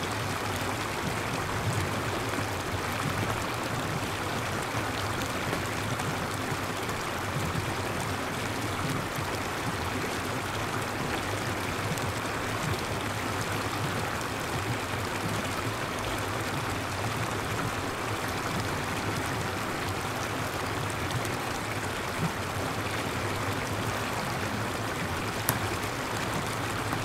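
Steady rushing of running water, even and unbroken, with one brief sharp tick near the end.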